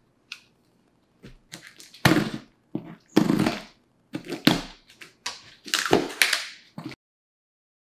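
A safety box cutter cuts through packing tape and cardboard on a shipping box in a series of short cutting and tearing strokes, with thunks as the box is handled. The sound cuts off abruptly about seven seconds in.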